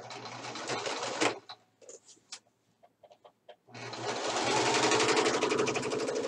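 Domestic sewing machine stitching a waistband closed in two runs: a short burst at the start, a pause with a few small clicks, then a longer, steady run of rapid stitching from a little before the four-second mark.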